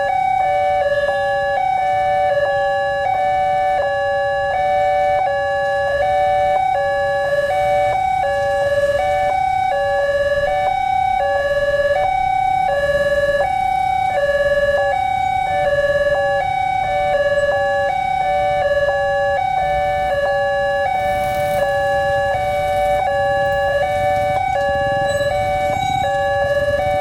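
Two railway level-crossing warning sirens sounding at once, each alternating between a high and a low tone about twice a second. The two run out of step with each other, so their tones clash.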